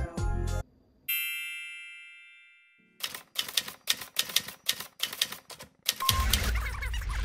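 Background music cuts off, then a single bell ding rings and fades away. A quick run of typewriter keystroke clacks follows, about five a second for some three seconds, and a louder rushing sound starts about six seconds in.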